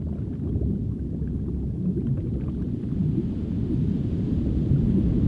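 Deep underwater rumble with faint bubbling and gurgling, slowly growing louder.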